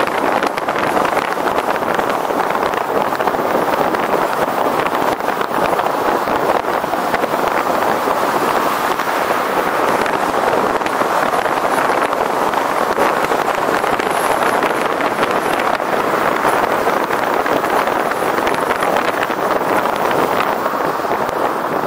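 Steady rushing noise of a vehicle moving through city streets, with road and wind noise on the camera's microphone.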